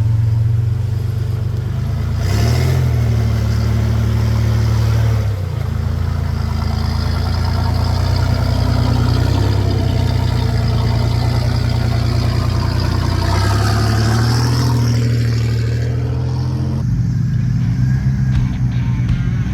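Off-road 4x4's engine running with its pitch rising and falling, revving up briefly about two seconds in and again near the end.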